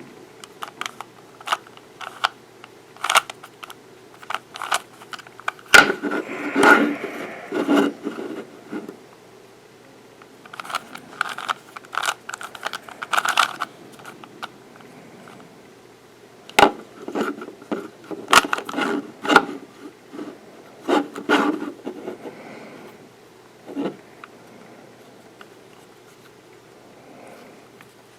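Plastic Rubik's Cube being turned by hand: irregular clusters of clicks and scraping as the layers are rotated, with short pauses between bursts of turns.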